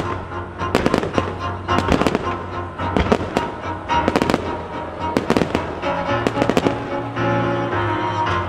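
Starmine fireworks barrage: shells bursting in quick clusters of sharp bangs, over a steady piece of accompanying music.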